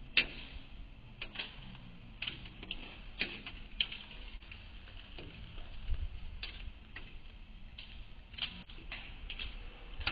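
Irregular sharp ticks and taps, about one a second, over faint low background noise.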